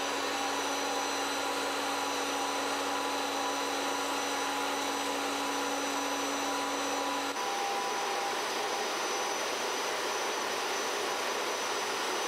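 Steady whooshing machine noise with faint steady hums, like a fan or blower running. A low hum in it cuts off suddenly about seven seconds in.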